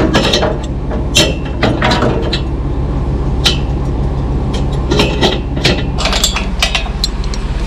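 Truck-mounted loader crane at work, a steady low engine and hydraulic hum with repeated sharp metal clanks and knocks as a steel rack of window frames is lifted on its strap.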